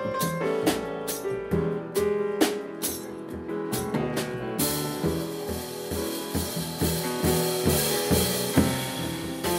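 Jazz piano trio of acoustic grand piano, double bass and drum kit playing together, the drums striking sharp snare and rim hits under the piano and bass lines. About halfway through, a steady wash of cymbals comes in over the band.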